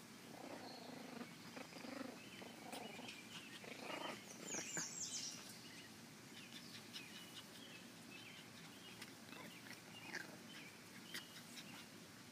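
Two puppies play-fighting, growling softly in the first few seconds, with a brief high chirp about halfway and faint scuffling after.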